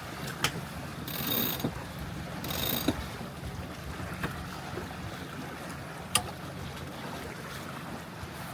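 Wind and water noise aboard a Catalina 22 sailboat under sail, steady throughout. A few sharp knocks and two brief hissing bursts come in the first three seconds, with one more knock about six seconds in.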